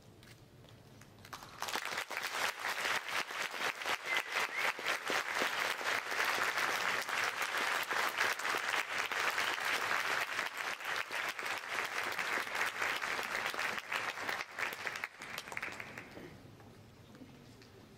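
Audience applause, starting about a second and a half in and dying away near the end.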